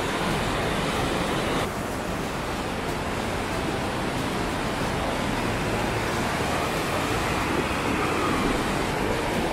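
Steady rush of fast-flowing water, such as a mountain stream. About two seconds in, its tone shifts abruptly and the higher hiss drops.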